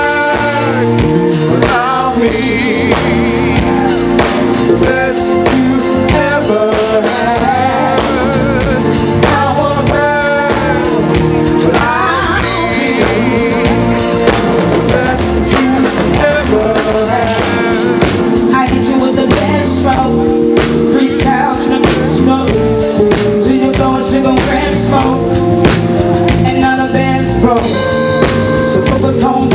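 A live band plays loudly behind a singer. A drum kit, electric bass guitar and keyboards accompany the lead vocal.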